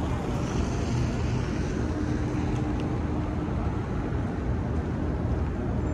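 City street traffic noise: a steady low rumble of passing vehicles.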